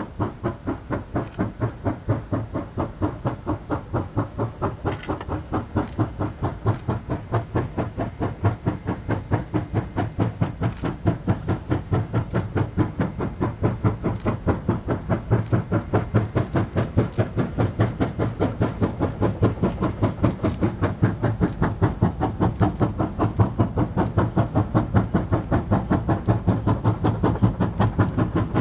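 China Railways JS class steam locomotive working under load, its exhaust beating out a rapid, even rhythm of chuffs that grows slowly louder as it approaches.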